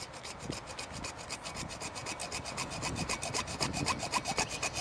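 Hacksaw cutting through a PVC pipe, the blade rasping back and forth in quick, even strokes that grow a little louder in the second half.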